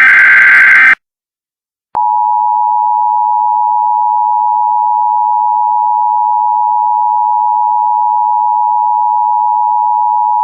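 Emergency Alert System tones: the last SAME digital header burst ends about a second in. After a short silence, the EAS two-tone attention signal (853 and 960 Hz sounded together) holds steady for about eight seconds and cuts off abruptly.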